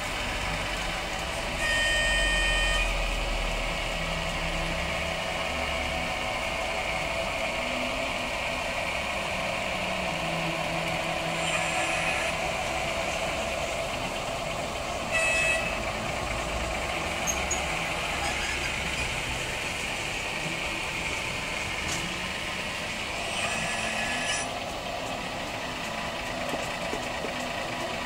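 Sound unit of a model catenary maintenance railcar playing a steady diesel engine running, with short horn-like toots about four times.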